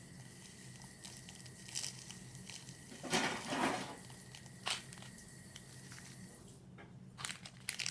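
Scattered handling noises as slime mix-ins are tipped and shaken into a bowl: light rustling and crunching in a few separate bursts, with a longer one about three seconds in and a quick cluster near the end, over a faint steady hum.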